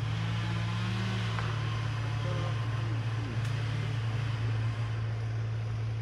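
Engine running steadily with a low, even hum, and a second engine note that rises and falls over the first few seconds.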